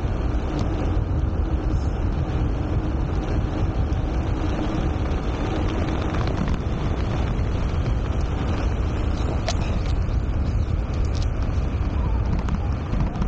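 Steady rush of wind over an action camera's microphone, mixed with tyre noise, as a gravel road bike descends at speed. There is one sharp tick about two-thirds of the way through.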